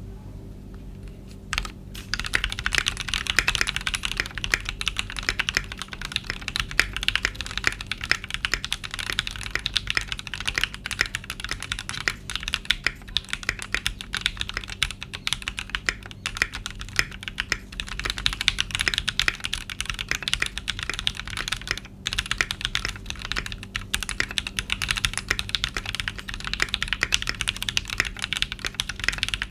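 Fast, continuous typing on a stock Keychron Q6 full-size aluminium mechanical keyboard with Gateron Pro Red linear switches and its stock keycaps. The keystrokes begin about a second and a half in.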